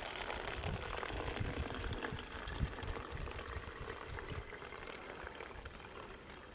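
Water pouring from a plastic jug into a hanging plastic glucose bottle that serves as a drip feeder for vegetable plants; the steady pour slowly gets quieter.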